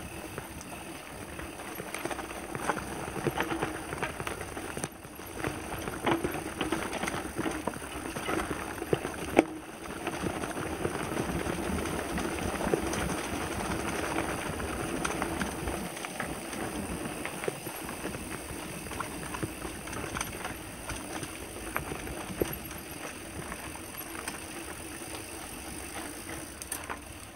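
Mountain bike riding fast down a dirt singletrack: a steady rumble of knobby tyres on the trail, with the bike rattling and knocking sharply over bumps.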